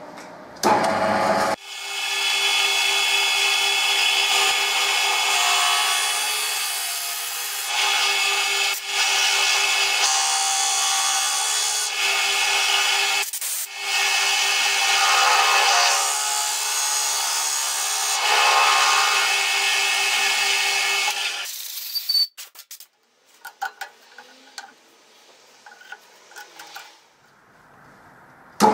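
Lathe running with a steady motor whine while a 20 mm drill bit in the tailstock drill chuck bores into the end of a spinning wooden block, rubbing and cutting into the wood. This is the bore for a wooden air engine's cylinder block. The cutting noise dips briefly a few times, then the lathe stops about 21 seconds in, and only light scattered clicks follow.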